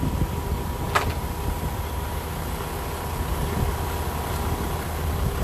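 Steady low engine rumble from the concrete-pouring machinery, with a thin steady hum above it and one sharp click about a second in.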